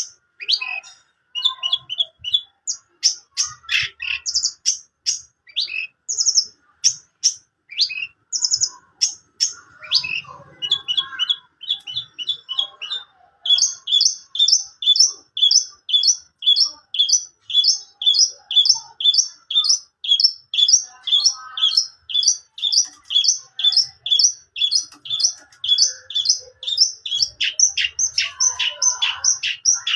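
Long-tailed shrike (cendet) singing loudly in sharp, high chirps and varied phrases. About halfway through it settles into a fast run of the same sharp note, repeated about three times a second.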